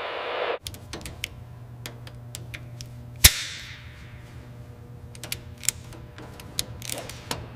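A brief burst of radio static, then a steady low hum with scattered light clicks and taps of tools on a radial aircraft engine. One sharp metallic clank about three seconds in rings on briefly.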